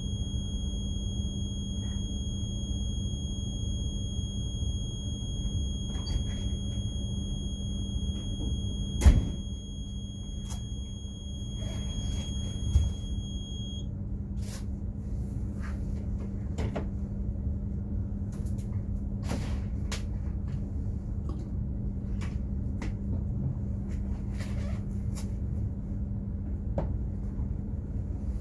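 Steady low rumble and constant hum of a container ship's machinery. A thin, high, steady whine stops about halfway through. Scattered metallic clicks and knocks run over it, with one loud bang about a third of the way in.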